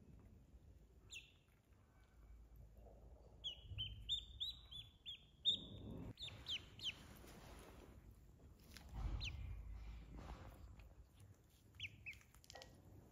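Duckling peeping: a quick run of short, high, falling peeps a few seconds in, then scattered single peeps.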